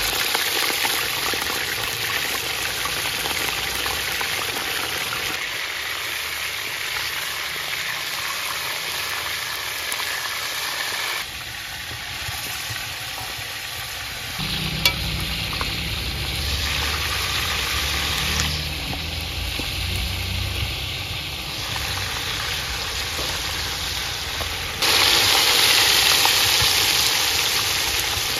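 Chicken pieces sizzling in hot oil in a large aluminium pot, stirred with a wooden spatula. The sizzle grows louder and brighter about three-quarters of the way through.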